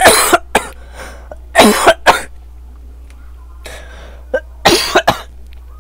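A man coughing in three bouts: at the start, about two seconds in, and near the end.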